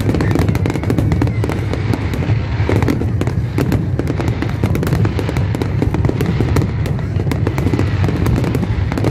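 Large aerial fireworks display: a continuous barrage of bursting shells, many sharp cracks and pops in quick succession over a steady low rumble.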